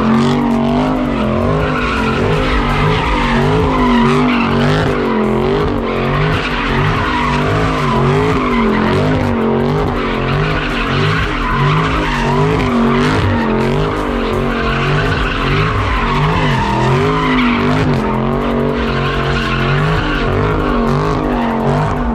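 Car doing a burnout: the engine revving hard, its pitch rising and falling over and over, with tires squealing and skidding.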